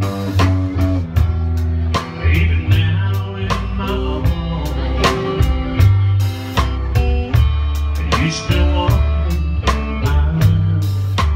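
Live band playing blues-rock music: a drum kit keeps a steady beat under guitar and changing low bass notes.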